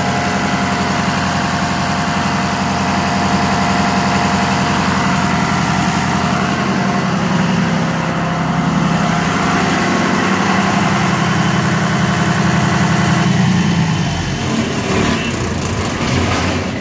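John Deere 6068 six-cylinder diesel engine idling steadily on its newly replaced injector pump, not yet brought up to rated speed. Its note shifts near the end, with a few brief knocks.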